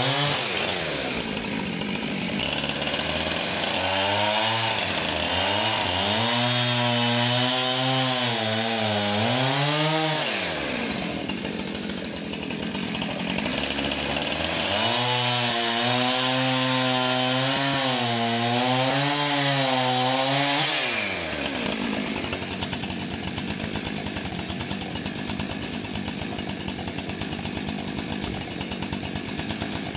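Husqvarna 372XP two-stroke chainsaw with a 24-inch bar cutting through logs. It revs high for two long cuts, its pitch wavering under load, and drops back between and after them. After about 22 s it settles into a lower, steadier sound.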